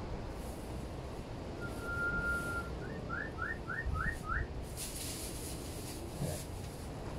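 A clear whistle: one long steady note, then five short, quick rising notes in a row.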